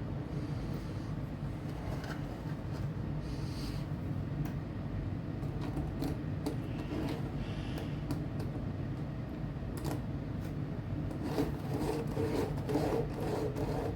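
Rubbing and light clicking as a plastic HO scale model locomotive is handled and set on the track, over a steady low hum.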